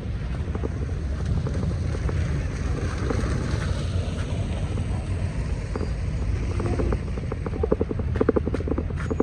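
Heavy rain with wind buffeting the microphone: a steady low rumble, with a quick, even pulsing near the end.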